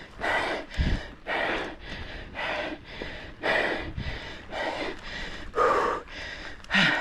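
A man panting hard, quick heavy breaths in and out at nearly two a second: out of breath after a hard uphill climb on a mountain bike, heart rate near its peak.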